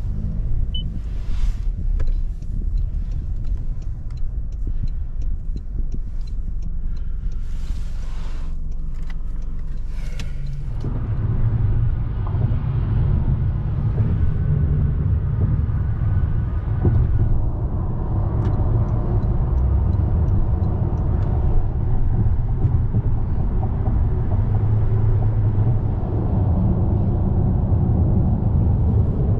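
Cabin noise inside a 2024 Toyota Corolla: a low steady rumble with a few light clicks at first, then, about a third of the way in, a louder, fuller rumble of tyre and road noise as the car cruises at highway speed.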